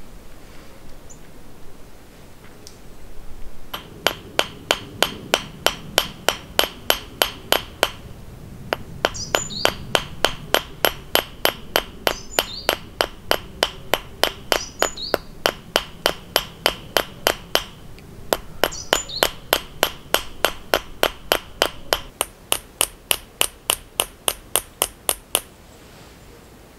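Small hammer tapping steadily at about four light blows a second, peening the copper rivet that fixes a copper blade into an arrowhead socket. Each blow gives a short metallic ring. The tapping starts a few seconds in, comes in runs with brief pauses, and stops shortly before the end.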